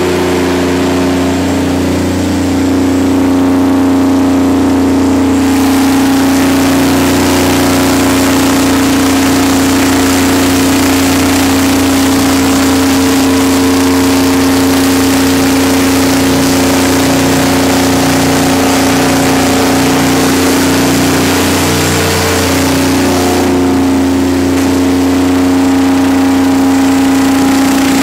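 Detroit Diesel 12V92 two-stroke V12 diesel engine of a 500 kW generator set running at a steady speed, with a layered drone of engine tones. A brighter hiss rises over it about five seconds in and falls back a few seconds before the end.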